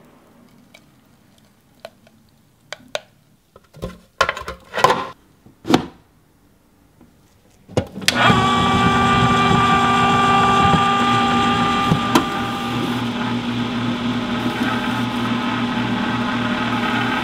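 A few clicks and knocks, then about eight seconds in the Cuisinart ICE-30BC ice cream maker's motor switches on and runs steadily with a whine, turning the freezer bowl against the dasher.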